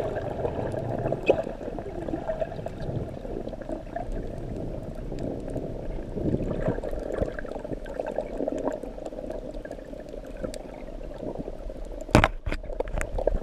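Steady water noise, with two sharp knocks near the end.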